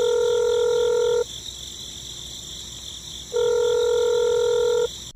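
Telephone ringing tone, as heard by a caller waiting for an answer: two long, even electronic rings about a second and a half each, a couple of seconds apart, over a faint steady high-pitched background.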